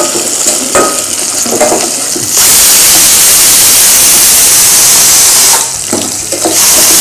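Onions and green chillies sizzling in hot oil in a steel pot, with a ladle scraping the pot in a few strokes. About two seconds in, a loud, steady hiss of steam from a pressure cooker's whistle starts. It stops about three seconds later and starts again near the end.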